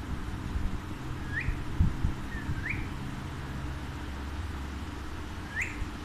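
Alexandrine parakeet giving three short whistled chirps, each a quick upward sweep in pitch, spread over several seconds. A few low thuds sound about two seconds in.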